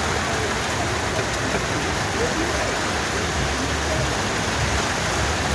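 Heavy rain pouring steadily, a dense unbroken hiss of falling water.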